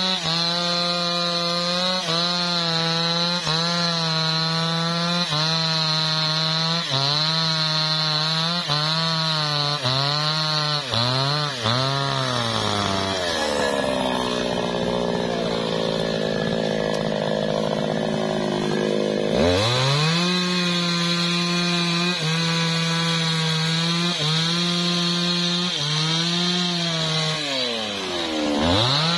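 Maestro MT 6500 two-stroke chainsaw cutting through an old teak log, its engine note dipping and recovering about every second and a half as the chain bites. For several seconds in the middle the pitch swoops away from the steady note before settling back into the cutting rhythm.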